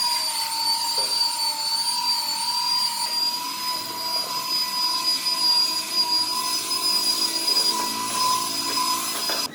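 A power tool's motor running steadily at a constant high-pitched whine, then cutting off suddenly near the end.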